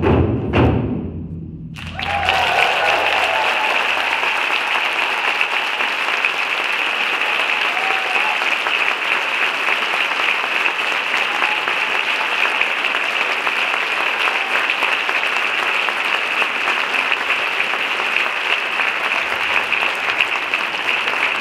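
Two last strokes on large Japanese taiko drums, about half a second apart, ring out and die away. About two seconds in, the audience breaks into loud, steady applause that carries on.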